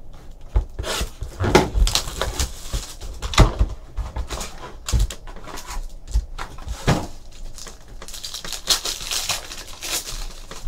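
A Crown Royale hockey card box being handled and opened: a string of knocks and taps, then the crinkle and rip of a foil card pack being torn open near the end.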